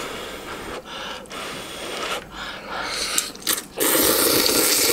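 A person slurping instant ramen noodles off chopsticks: a few breathy puffs of blowing to cool the hot noodles, then one loud, long slurp about four seconds in.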